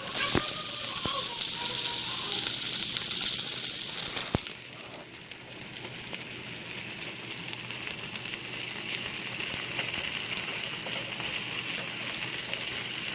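Sliced upo (bottle gourd) sizzling as it is sautéed in a pan, with a few light clicks. About four seconds in there is a sharp clack, after which the sizzle goes on more quietly.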